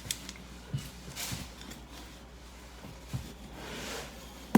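Light taps and clicks of trim pieces and a blade being handled during vinyl floor trimming, with a short scraping sound about three and a half seconds in and a sharper click at the very end.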